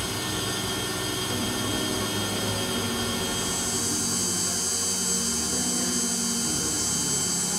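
KitchenAid stand mixer running steadily, its flat beater creaming margarine and sugar in a glass bowl as beaten egg is added. It makes a continuous motor whine, and the higher hiss grows brighter about three seconds in.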